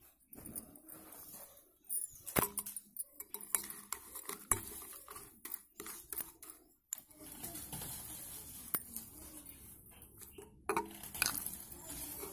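Metal spoon stirring a wet slate-pencil slurry in a glass bowl, clinking irregularly against the glass and the broken slate pencil pieces, with clusters of clinks a couple of seconds in and again near the end.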